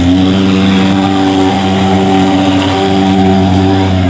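Thermal mosquito-fogging machine's pulse-jet engine running steadily at an unchanging pitch, with a low buzz, while it sprays insecticide fog.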